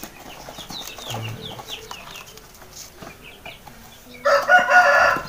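A rooster crowing loudly, starting about four seconds in, with faint high chirps before it.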